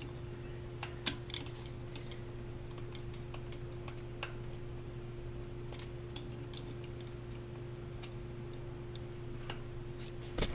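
Faint, irregular small clicks from hand-adjusting a bicycle rear derailleur, over a steady low hum.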